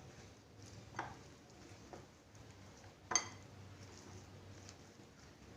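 A spoon stirring fried egg with mayonnaise and seasonings in a bowl, knocking against the bowl in a few light clinks, the sharpest about three seconds in.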